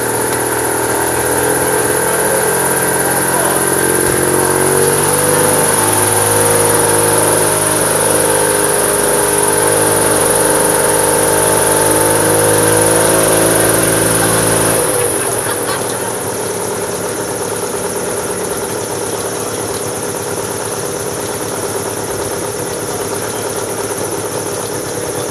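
Single-seat gyrocopter's engine and pusher propeller running. The pitch rises a few seconds in and holds steady, then about fifteen seconds in the note falls away and it runs on quieter and rougher.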